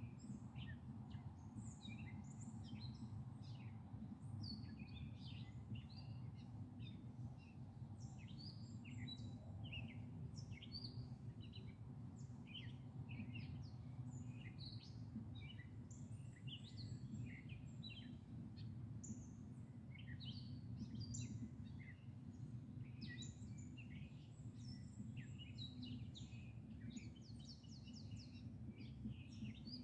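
Small birds chirping and singing in many quick, short notes throughout, over a faint, steady low rumble of background noise.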